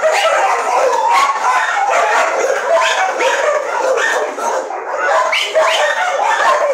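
Many dogs barking and yelping at once, a loud, unbroken chorus of overlapping calls.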